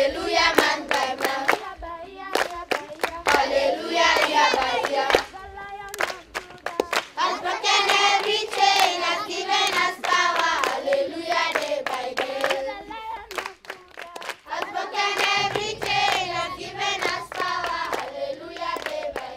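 A group of voices singing together in chorus over steady rhythmic hand clapping, about three claps a second. The clapping carries on through short breaks in the singing.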